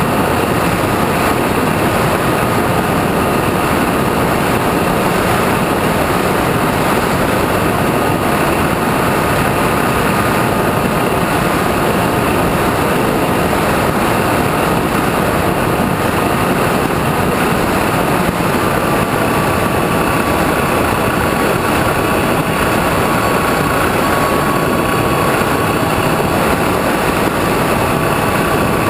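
Electric motor and propeller of a radio-controlled trainer plane running steadily in flight, with heavy wind rush over a camera mounted on the plane. A thin steady whine holds one pitch, dropping slightly about two-thirds of the way through.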